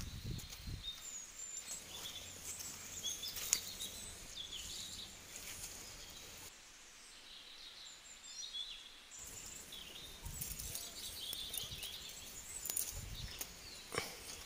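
Birds chirping and calling repeatedly over a steady background hiss, with brief low rustling sounds near the start and again near the end.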